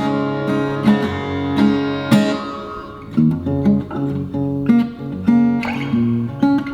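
Maton acoustic guitar, fitted with a Tonewood Amp, played as a flowing run of plucked notes and chords. The reverb effect is turned down.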